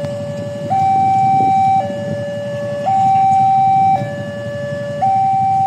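A two-tone siren alternating between a lower and a higher pitch, each held about a second, the higher one slightly louder, over a steady low rumble.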